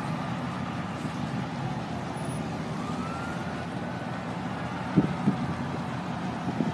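Steady street traffic noise with a faint siren that rises and falls once slowly in the middle. A couple of short thumps about five seconds in are the loudest sound.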